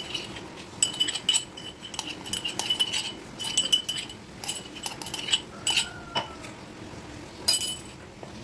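Kitchen utensils clinking against dishes: a string of light, irregular ringing clinks.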